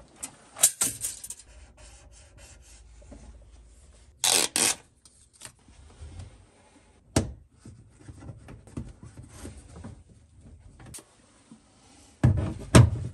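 Handling noises of plastic parts on the wooden cabinet wall: scattered clicks and rubbing, with a short scraping burst about four seconds in. Near the end comes a cluster of knocks and thuds as the plastic UV sterilizer housing is hung onto its wall mounting plate.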